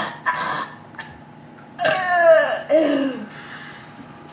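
A couple of short coughs, then a long voiced cry that slides down in pitch.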